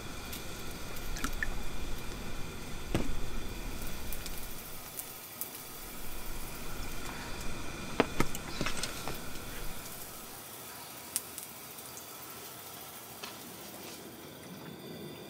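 Makgeolli pouring from a plastic bottle into a metal bowl for the first few seconds, followed by a few sharp knocks as the bottle and bowl are handled on a wooden table, then a quieter stretch.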